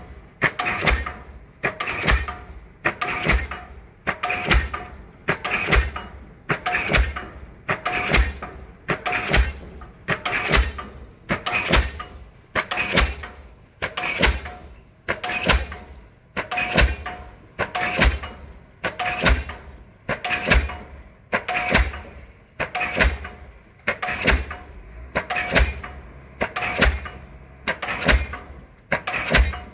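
Diesel pile hammer driving a pile: a steady run of sharp, ringing blows, a little under one a second, evenly spaced.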